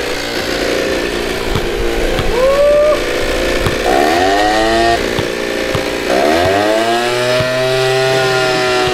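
Backpack leaf blower's engine running, throttled up twice, about 4 s and 6 s in, its pitch climbing and then holding high for several seconds, the air blast keeping a basketball aloft.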